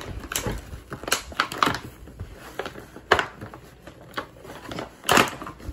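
Irregular plastic clicks and knocks as a toy gel blaster and its parts are lifted and shifted in their moulded plastic packaging tray. The loudest knocks come about three seconds in and again near the end.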